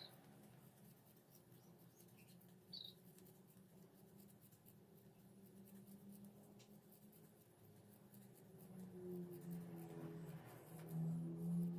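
Faint cutting and scraping of scissors working through mika plastic sheet, with a couple of short high squeaks in the first few seconds. A low hum grows louder near the end.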